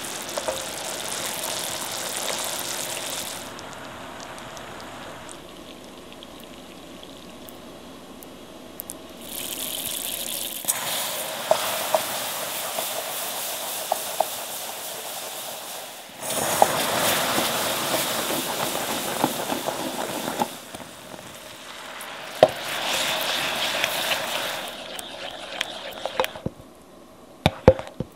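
Sugar syrup boiling and caramelising in a pot, then several stretches of loud hissing and bubbling as warm heavy cream is added to the hot caramel, with clicks of a silicone spatula stirring against the pot.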